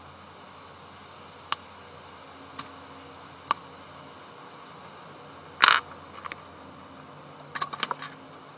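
Sharp, separate clicks of small hard objects, a few seconds apart, then a louder clatter about two thirds of the way through and a quick run of clicks near the end, over a steady low hum.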